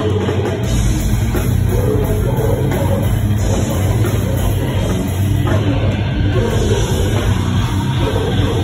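A heavy hardcore/metal band playing live with electric guitar and drum kit, loud and dense. The low end fills in about a second in.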